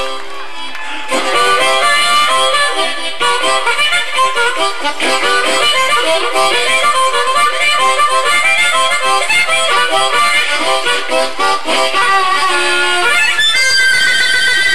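Blues harmonica played solo, with no band playing along: quick runs and chords of reedy notes, ending near the end on a high, wavering held note.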